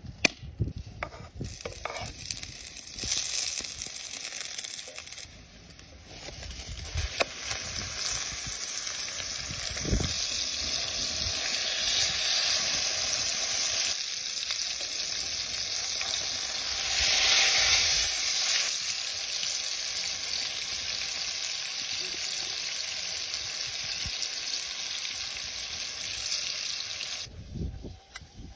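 Hot oil and a minced-meat burger patty sizzling in a frying pan over a wood fire: a steady frying hiss that swells briefly about two-thirds of the way through and cuts off near the end.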